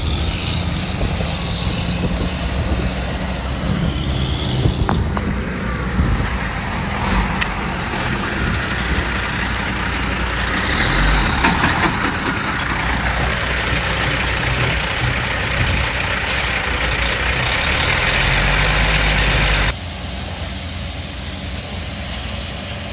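Heavy diesel excavator engine running under load while it tears down a building, with crunching and a few sharp knocks of breaking debris. The whole sound drops off suddenly near the end.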